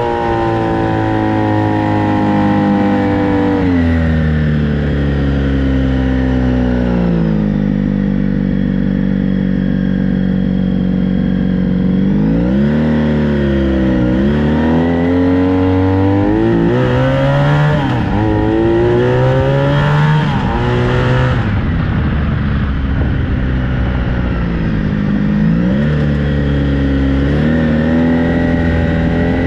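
Honda VF1000 V4 motorcycle engine in a home-built dune buggy, running under way. The revs fall over the first several seconds and hold steady. Around the middle they dip and climb again several times with throttle changes, and they dip once more near the end.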